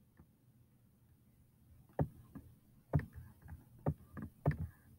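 Quiet room tone, then from about two seconds in a series of short sharp taps or clicks, roughly one a second, as tick marks are drawn one by one with a pen tool on a computer screen.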